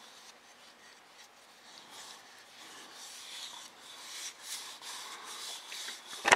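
Nitrile-gloved hands rubbing walnut oil into a small turned elm bowl: a soft, hissy rubbing of glove on wood that grows stronger partway through, with one sharp knock near the end.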